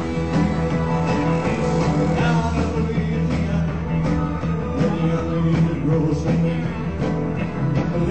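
Live rock and roll band playing on stage, with drums and guitars, in a dull-sounding concert recording whose top end is cut off.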